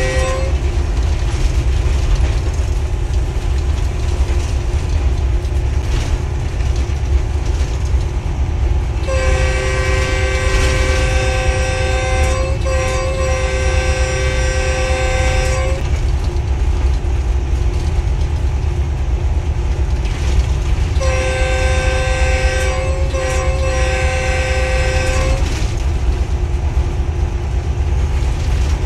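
Locomotive cab noise: a steady low rumble of the diesel engine and running gear, with the locomotive's multi-tone horn sounded twice. The first blast lasts about six seconds with a brief break partway. About five seconds later a second, shorter blast of about four seconds is also briefly broken.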